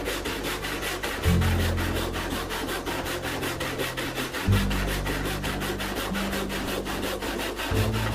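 Saw teeth rasping through a board by hand in fast, even strokes as it is resawn. Under it, low sustained background music changes note about every three seconds.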